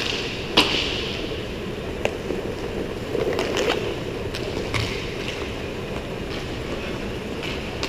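Inline skate wheels rolling on a plastic tile rink floor, with sharp clacks of hockey sticks on the puck and floor, the loudest about half a second in.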